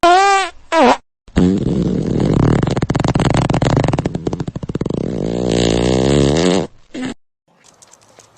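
Farting: two short, squeaky, wavering toots, then one long fluttering fart of about five seconds with a rapid pulse, ending with a short squeak.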